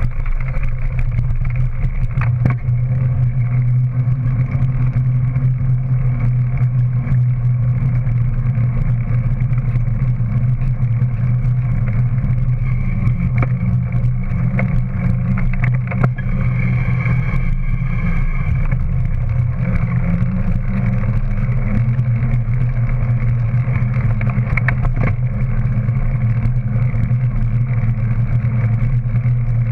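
Steady riding noise from a camera mounted on the back of a moving two-wheeler on a paved path: a constant low hum with road and wind rumble, and a few light knocks from bumps.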